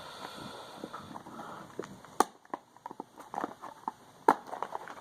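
Hands opening a small cardboard mystery-figure box and its tight wrapping: scattered small clicks and crinkling, with two sharper snaps, one about two seconds in and one near the end.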